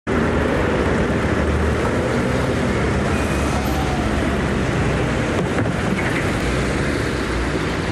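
Steady street-traffic noise: car engines running in slow city traffic.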